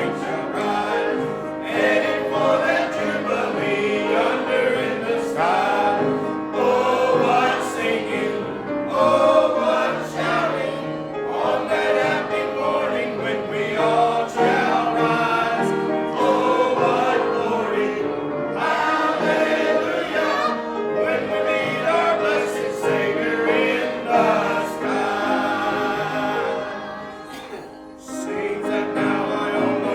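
Church congregation singing a hymn together. The singing eases off briefly near the end, then picks up again.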